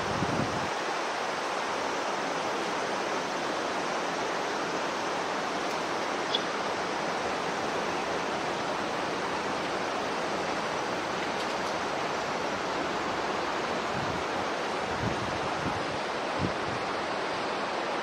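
Steady rushing hiss of running water, even and unbroken, with a few soft low thumps near the end.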